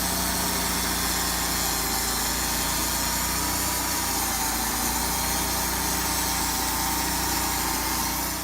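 A machine's engine running steadily at an even, unchanging speed, with a low hum under it. It cuts off suddenly at the end.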